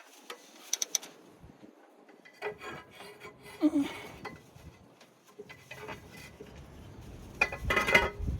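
Hands handling and fitting parts: scattered clicks, rubbing and knocks, with a louder clatter near the end.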